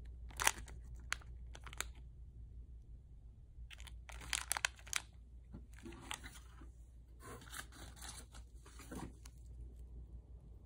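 Plastic snack packets crinkling and rustling in the hands: a few sharp crinkles in the first two seconds, then a longer stretch of rustling from about four to nine seconds in.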